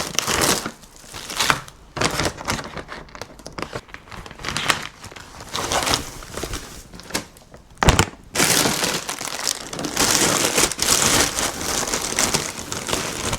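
Plastic food packaging crinkling and rustling as it is handled, denser and steadier over the last five seconds, with one sharp knock about eight seconds in.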